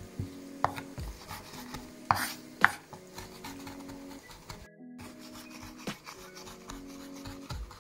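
Kitchen knife mincing herbs on a wooden cutting board: irregular scraping and rocking strokes with a few sharper knocks of the blade on the wood.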